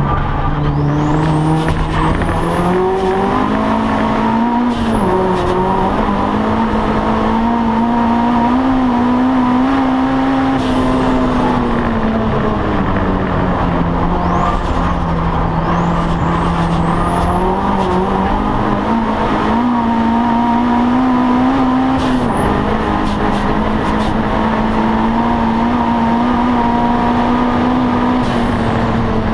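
Audi TT race car's engine heard from inside the cabin, pulling hard through the gears: its pitch climbs and falls away sharply at each upshift or lift, several times. A thin high whine rises with the revs and cuts off each time the throttle closes.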